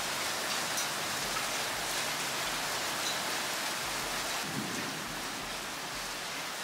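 Heavy rain bucketing down outdoors, a steady hiss of rain on the ground with a few faint separate drop ticks; the hail has just stopped.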